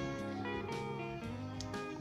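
Quiet background music of plucked guitar notes.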